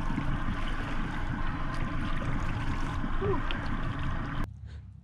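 Boat under way while trolling: its motor running under a steady rush of water. The noise cuts off abruptly about four and a half seconds in, leaving a much quieter hush.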